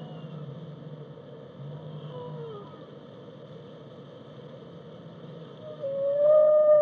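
Whale song: faint moans and a short falling glide over a low, pulsing rumble, then about six seconds in a much louder long call that rises and then holds steady.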